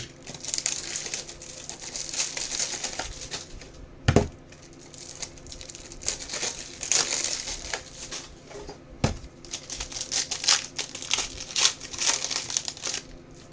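Crinkling of a trading-card pack's foil wrapper being torn open and handled, in uneven runs, with a couple of dull knocks about four and nine seconds in.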